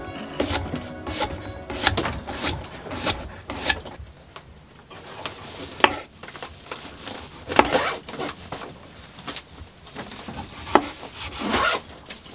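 Kitchen knife cutting vegetables on a cutting board: a run of regular knocks and strokes for the first few seconds, then sparser sawing strokes through a tomato.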